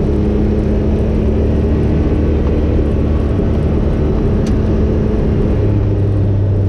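Vehicle engine and road noise heard from inside the cabin while driving on a dirt road: a steady low hum whose note drops lower about five and a half seconds in.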